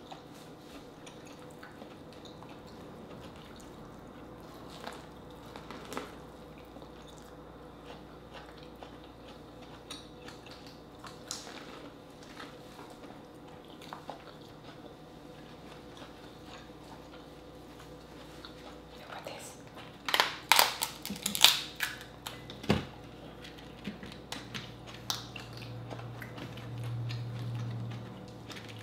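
Quiet eating sounds of seafood picked apart by hand and chewed, with small clicks and wet mouth sounds. About twenty seconds in comes a burst of sharp cracks and snaps as a king crab leg shell is broken open, and a low hum follows near the end.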